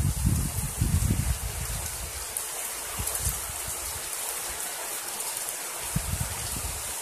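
Heavy rain falling steadily on a street and pavement, an even hiss, with low rumbling in the first second or so and again near the end.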